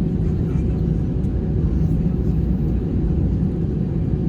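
Steady low rumble of an Airbus A320's running jet engines and airframe, heard from inside the passenger cabin.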